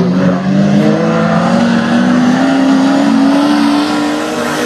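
Six-cylinder dirt-track speedway cars running on the track, one engine note climbing slowly and steadily in pitch as they gather speed, easing slightly near the end.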